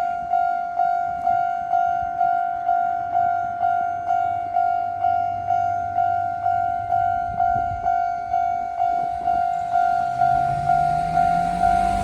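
Japanese level-crossing warning bell ringing, an electronic tone struck about twice a second. Near the end a train approaches: a rumble and a low hum rising in pitch grow under the bell.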